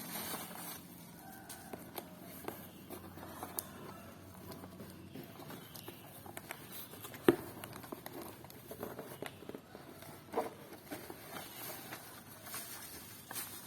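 Handling noises from a double-wall cardboard shipping box being worked open: soft rustling and scattered light clicks, with a sharp click about seven seconds in and another about ten seconds in.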